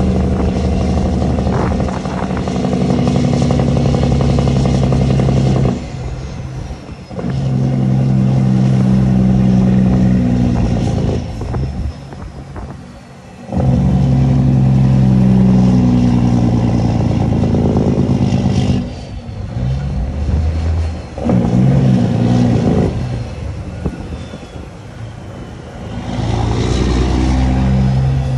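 Caterpillar C15 diesel truck engine through straight pipes, running loud and deep in long stretches that cut back sharply about five times as the throttle or engine brake comes on and off.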